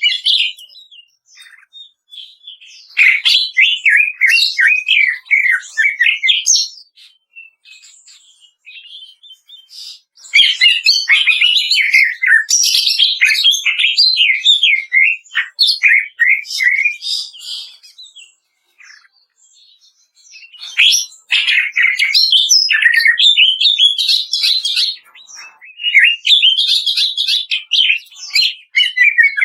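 Cucak ijo (green leafbird) singing a loud, rapid, rattling 'kretekan' song of fast chattering and warbling notes, in four long phrases with short pauses between them.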